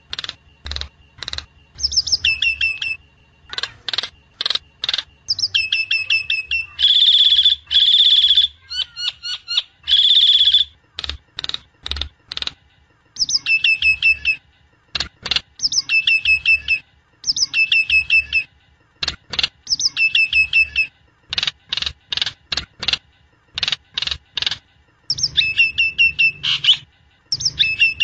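Jalak nias (a myna) singing: a busy run of sharp clicks and short whistled notes that fall in pitch, in repeated phrases, with a few longer, loud notes in between.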